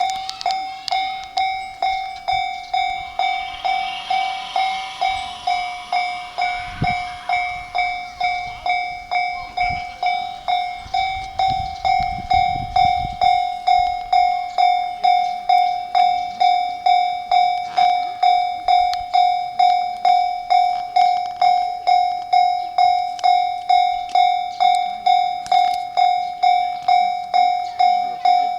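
Japanese railway level-crossing warning bell ringing, a steady repeating electronic ding. A train's running noise rises beneath it for a while in the first half.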